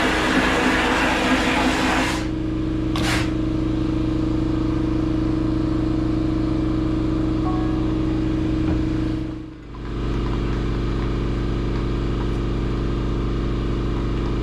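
Vapor blast cabinet at work: the blast gun hisses as it sprays slurry onto an aluminium engine case half, stops about two seconds in, and gives one short burst a second later. Under it the cabinet's pump runs with a steady hum, which briefly fades out and back about two-thirds of the way through.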